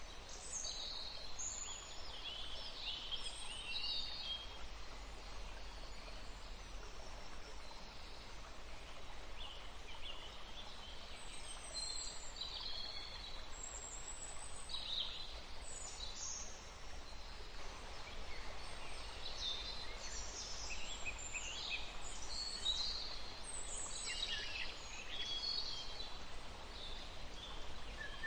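Songbirds chirping and singing, many short high calls and trills coming and going, busiest in the second half, over a faint steady background hiss.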